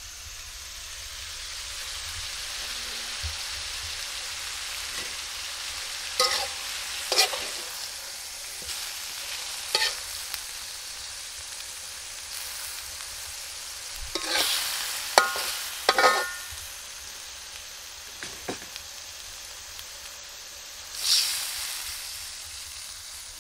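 Fish and seasonings cooking in a pan with a steady sizzle. About eight sharp scrapes and clinks of a utensil against the pan are scattered through it, the loudest a little past the middle.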